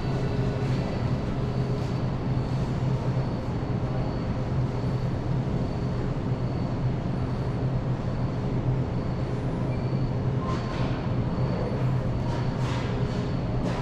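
Steady low hum and rumble, with a few faint clicks near the end.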